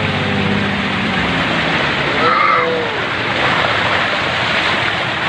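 Floodwater rushing and splashing against a lorry as it ploughs through deep water, heard from inside the cab, with the engine's low hum fading out after about the first second.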